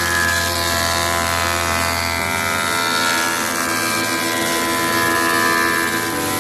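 Wood planer running with a steady motor whine. A lower hum drops away about two seconds in.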